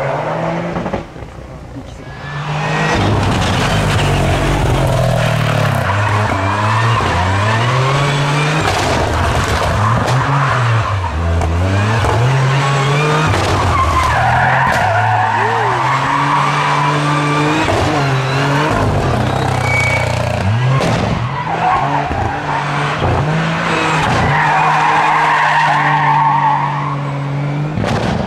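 Toyota GR Yaris rally car's turbocharged three-cylinder engine revving hard, its pitch rising and falling again and again as the car is flung around tight pylon turns, with the tyres squealing and scrubbing as it slides under power, loudest about halfway through and again near the end.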